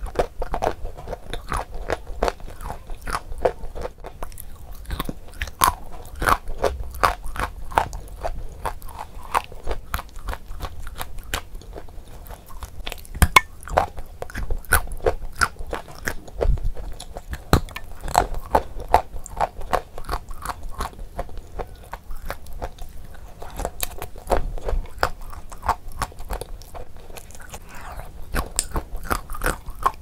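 Close-up crunching and chewing of chunks of Ural edible clay, a steady run of sharp, crackly bites and crunches.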